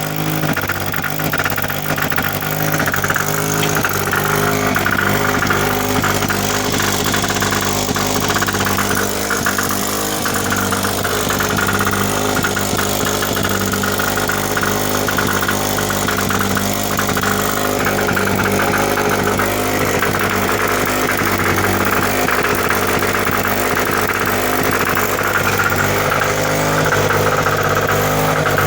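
Small two-stroke camp generator engine (2 HP, about 600 W) running steadily on diesel fuel with a little gasoline still in the tank.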